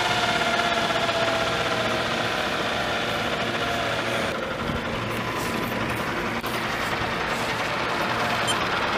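Vario EC135 scale model helicopter running on the ground, its main rotor turning: a steady rotor whir with a motor and gear whine. The whine falls in pitch over the first couple of seconds, then the whir holds steady.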